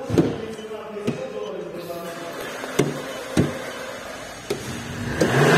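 A few light taps and knocks over a quiet background, then a car's engine noise swelling up near the end.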